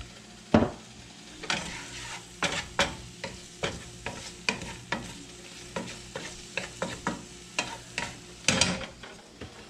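A wooden spatula stirring sliced dryad's saddle (pheasant-back) mushrooms in a nonstick skillet, tapping and scraping the pan about twice a second over a low sizzle of butter and olive oil on gentle heat.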